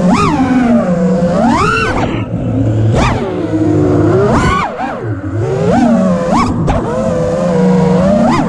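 FPV freestyle quadcopter's brushless motors (T-Motor F60 Pro IV 1750kv) spinning HQProp Ethix S3 propellers, heard from the drone's own onboard camera: a whining motor pitch that sweeps sharply up and falls back every second or two as throttle is punched and cut, with steadier stretches between.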